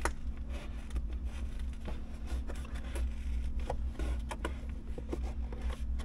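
Light plastic clicks and scraping as hands work the car's headliner edge and A-pillar trim loose, over a steady low hum.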